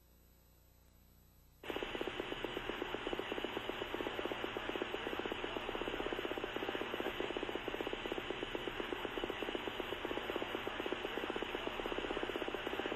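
Near silence, then about a second and a half in, steady two-way radio static hiss cuts in with a fast, even flutter, as on a keyed radio channel that carries no voice.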